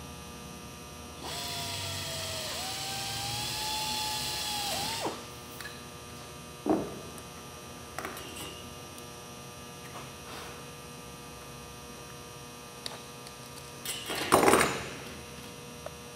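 Pneumatic air drill running for about four seconds as it bores a rivet hole through a thin sheet-metal plate on a wooden block, its whine shifting in pitch as the bit cuts. Afterwards comes a knock, light clicks of tools and clecos being handled, and a short, louder rush of noise near the end.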